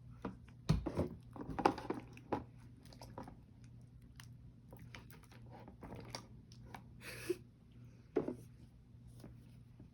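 Slime of glue and activator squished and worked by hand, giving irregular wet clicks and crackles, densest in the first couple of seconds. A steady low hum runs underneath.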